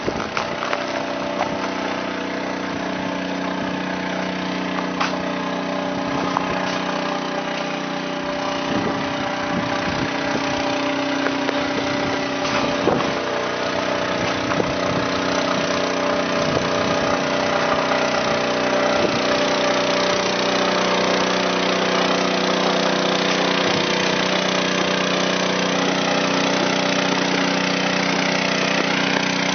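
Small gasoline-engine water pump running at a steady speed while it pumps water into the AquaDam, growing a little louder near the end.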